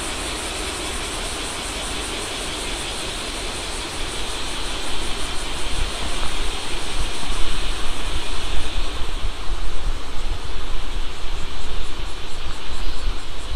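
Shallow river rushing steadily over rocks, with insects calling in a fast, even, high pulse. From about four seconds in, wind buffets the microphone in uneven gusts and the sound grows louder.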